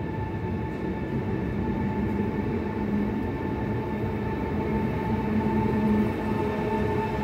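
A train running past on the track: a steady low rumble with a steady high whine over it, growing slowly louder.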